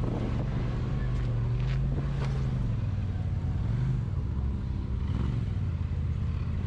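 Side-by-side UTV engine running steadily at low revs while the machine crawls over rock.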